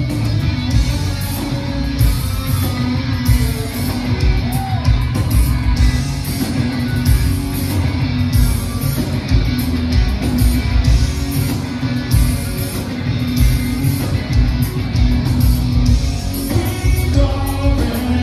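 Live rock band playing at full volume: electric guitars, bass guitar and drum kit, heard from the audience.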